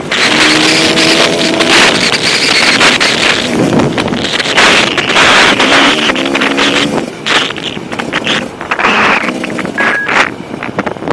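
Off-road motorcycle engine running under way, heard under heavy wind buffeting on the camera microphone. The engine holds a steady pitch for stretches about a second in and again about six seconds in, and the sound gets quieter after about seven seconds.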